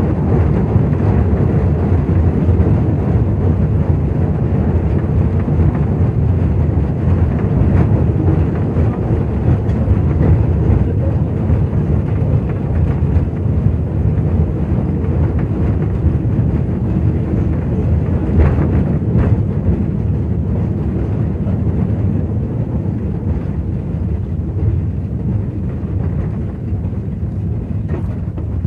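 Motor Rail "Wolf" narrow-gauge locomotive running with its short train, a steady engine and wheels-on-rail rumble. The sound falls away over the last few seconds as the train slows.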